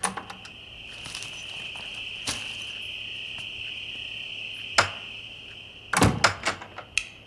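Crickets chirping steadily, with a few scattered knocks and clicks and a quick cluster of sharper knocks about six seconds in.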